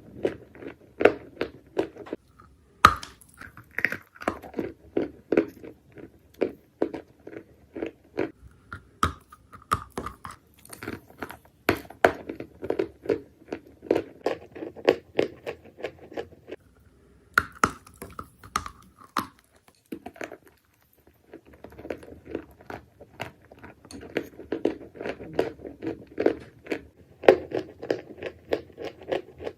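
Dry Turkestan clay being bitten and chewed close to the microphone: rapid crisp crunching and crackling in quick runs, broken by a few short pauses.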